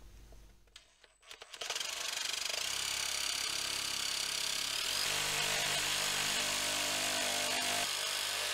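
Cordless power shear cutting through thin steel sheet for a rust-repair patch. It starts about a second and a half in and runs steadily, getting a little louder about halfway through.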